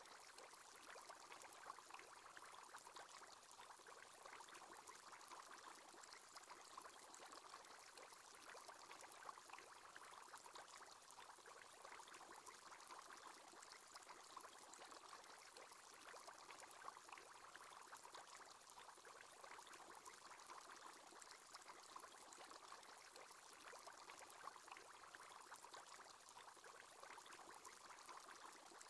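Faint, steady bubbling of an aquarium aerator's bubble column: a continuous stream of tiny bubble pops and trickling water.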